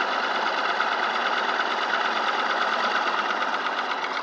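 Old crawler bulldozer's engine running steadily with a fast, even beat; the dozer is running again after being repaired.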